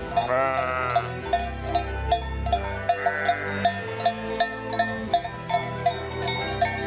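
Valais Blacknose sheep bleating twice, a longer call just after the start and a shorter one about three seconds in, over background music of plucked strings with a steady beat.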